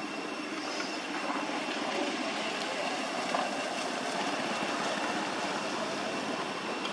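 Steady background noise with a faint, high, steady whine running through it; no distinct event stands out.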